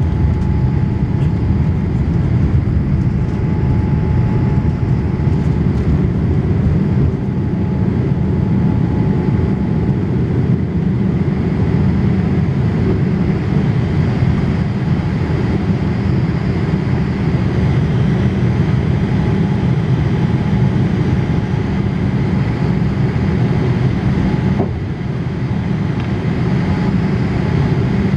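Boeing 787 Dreamliner's Rolls-Royce Trent 1000 engines at takeoff power, heard inside the cabin over the wing: a steady, deep noise through the lift-off and initial climb. A faint steady tone sits over it in the first ten seconds or so, and the level drops briefly about 25 seconds in.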